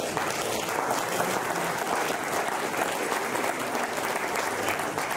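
Audience applauding, a dense, steady clapping that breaks out all at once.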